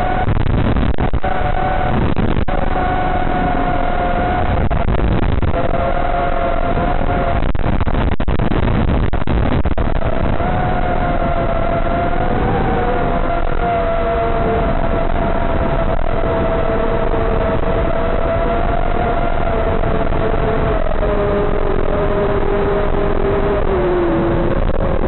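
Motors and propellers of a micro FPV quadcopter whining in flight, with several steady pitches over a rushing noise. The pitches drift with throttle and drop lower near the end.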